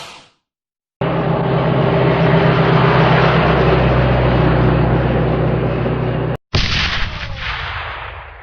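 Two sound effects: a loud, dense, steady noise with a low hum starts about a second in and cuts off abruptly after about five seconds. A sudden blast follows at once and fades away.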